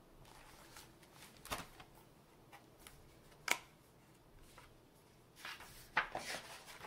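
Pages of a hardcover picture book being handled and turned: paper rustling with sharp taps about a second and a half in and again about three and a half seconds in, then a longer patch of rustling near the end.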